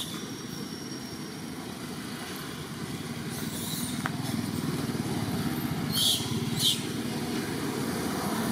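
A small engine running steadily, slowly growing louder from about three seconds in. Two short hissy bursts stand out about six seconds in.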